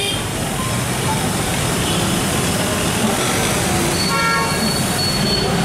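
Busy street traffic noise, with a vehicle horn honking briefly about four seconds in.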